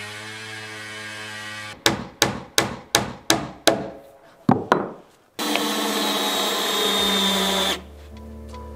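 A motor runs with a steady hum, then cuts out and gives way to a series of about eight hammer blows on wood, roughly three a second. A power tool then runs steadily for about two seconds.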